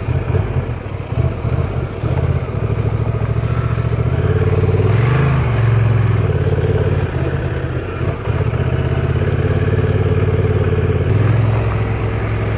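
Honda Transalp motorcycle engine pulling at low revs over a rocky trail, the revs rising and falling with the throttle and climbing briefly about five seconds in.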